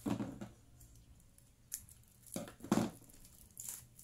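Album packaging torn and crinkled by hand as an album is unwrapped: a few short rustling tears, the loudest just before the last third.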